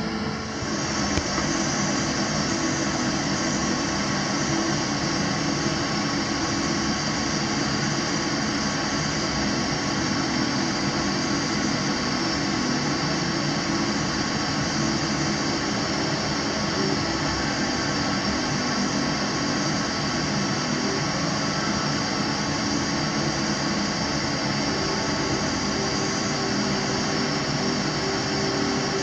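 Gas burner flame running steadily under a beaker of gold chloride solution being heated to boiling for oxalic acid reduction.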